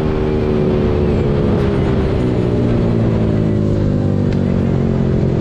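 Yamaha R15 V3's single-cylinder engine heard from on board while riding, its pitch falling slowly as the bike rolls off the throttle, then holding steady near the end.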